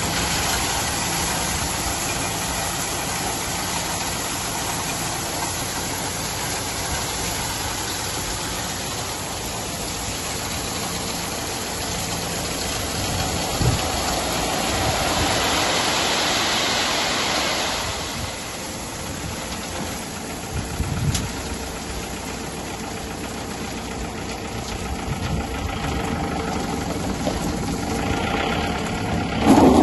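Tractor diesel engine running steadily, driving the hydraulics while the trolley's tipping body is raised on its hydraulic ram. The noise swells for a few seconds about halfway through.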